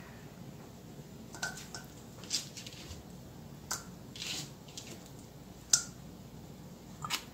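Scattered soft taps and squishes as fingers with long fingernails shred canned jackfruit and pick seed pods off a plastic cutting board; the sharpest tap comes a little before six seconds in.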